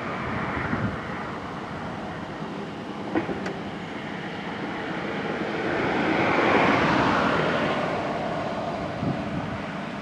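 Komatsu PC210LC hydraulic excavator working, its six-cylinder diesel engine and hydraulics running steadily and swelling louder about six to seven seconds in as the boom lifts. A short knock about three seconds in.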